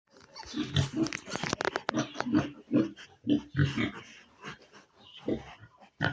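Pigs grunting in a rapid run of short, low grunts, with sharp clicks among them.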